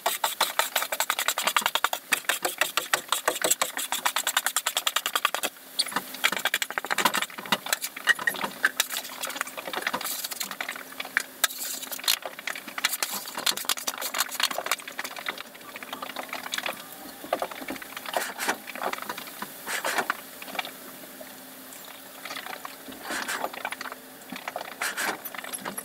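A shovel and stall scraper scraping and scooping wet hay and manure off rubber stall mats: many quick scrapes and knocks, very rapid in the first few seconds and sparser later, over a faint steady hum.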